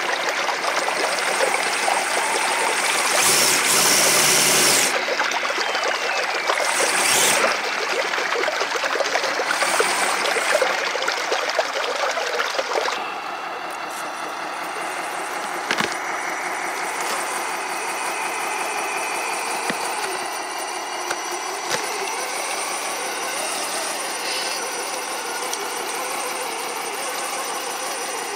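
Creek water running and splashing around a 1/14-scale six-track electric RC semi truck as it drives, with a couple of louder splashy bursts early on. From about halfway the water is quieter and the truck's four brushed electric motors and two transmissions give a steady, even whine.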